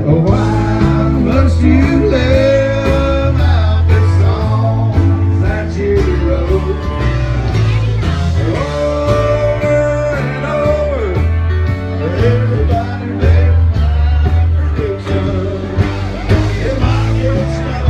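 Song with a male or female lead vocal over guitar, bass and drums, in a blues or country-rock style with a steady beat.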